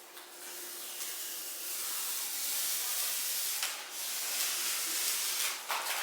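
A steady hiss that builds over the first couple of seconds and holds, with a brief dip a little under four seconds in and a few sharp clicks near the end.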